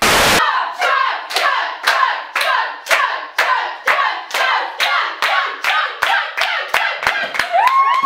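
A short burst of TV static, then rhythmic hand claps, about two a second, with voices between the claps. Near the end a tone rises and then holds steady.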